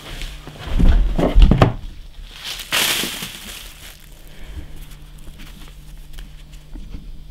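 A scuffle with loud cries in the first couple of seconds, then a loud crunching noise near the middle, followed by quieter crinkling and rustling.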